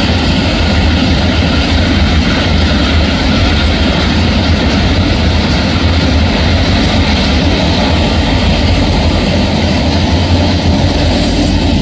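Loaded open coal wagons rolling past on the rails. Then the diesel locomotives pushing at the rear of the train go by, their engines running under load with a steady low rumble.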